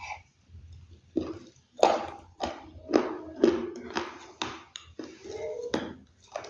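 Crunching of a dry earthy material, a string of sharp, brittle crunches coming every half second or so.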